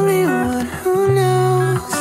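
Background music: a song with a hummed vocal melody over guitar and bass notes.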